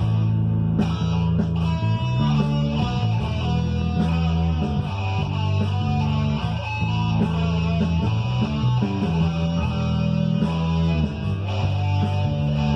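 Guitar played along with a rock backing track of bass and drums: a continuous run of guitar notes over steady bass notes and a regular beat.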